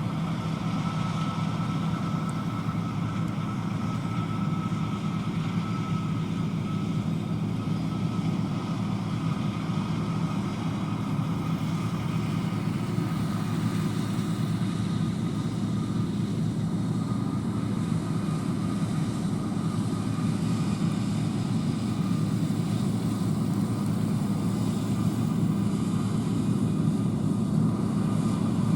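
John Deere combine harvester running steadily: a low engine drone with a faint steady whine above it that fades after about halfway.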